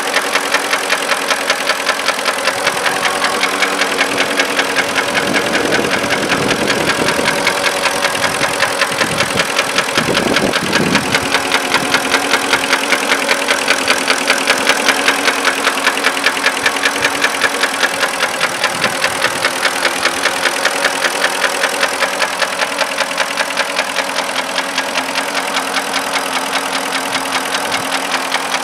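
2005 Porsche Cayenne's 4.5-litre V8 idling with a steady, regular knock, which the owner traced to stuck lifters.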